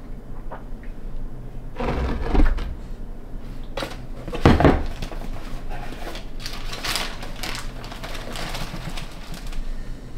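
Dry floor-leveler powder poured and scooped into a plastic bucket, with rustling, hissing pours and the container knocking against the bucket. The loudest clatter comes about four and a half seconds in.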